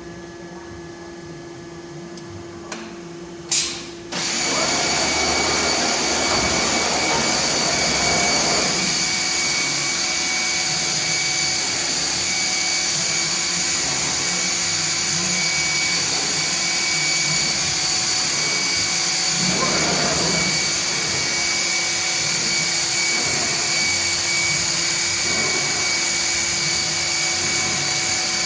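1995 Masterwood Speedy 315 CNC machining centre powering up: a low hum and a click, then about four seconds in a loud, steady high-pitched whine and rushing noise starts and keeps running, with a few brief swells as the machine works.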